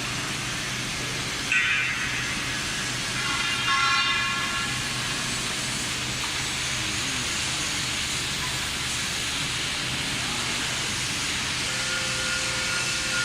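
Steady hiss over a low hum from running welding-shop machinery. Short pitched whines come in about a second and a half in and again around four seconds, and a faint steady tone rises near the end.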